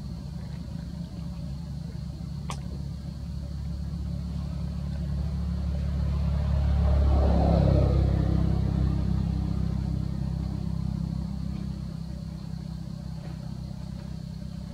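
A motor vehicle's engine passing by: a low hum that grows louder, is loudest about halfway through, then fades away.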